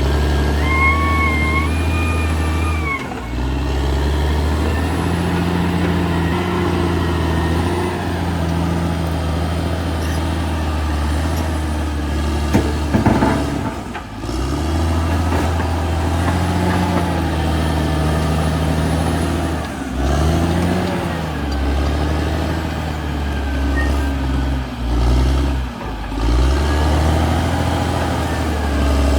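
Caterpillar D6R XL bulldozer's diesel engine running hard, its note sagging and picking up again several times as the load changes. A high squeal sounds in the first few seconds, and a short clank comes a little before halfway.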